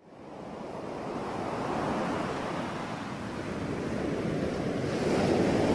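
Surf washing onto a beach, a steady rushing noise with wind on the microphone, fading in over the first second and swelling a little near the end.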